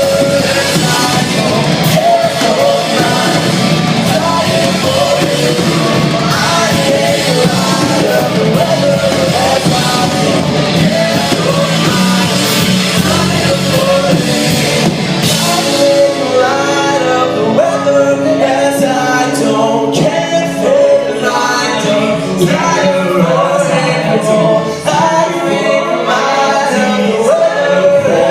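A vocal group singing over full band accompaniment. About halfway through the accompaniment thins out, leaving the voices in harmony over a steady percussive beat.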